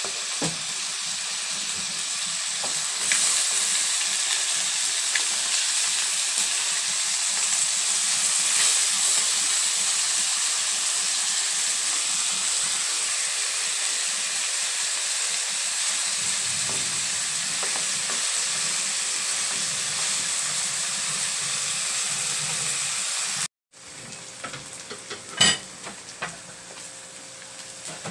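Chicken pieces sizzling steadily in hot oil in a wok as they are browned. About 23 seconds in the sizzle cuts out for a moment and comes back quieter, with a few sharp knocks near the end.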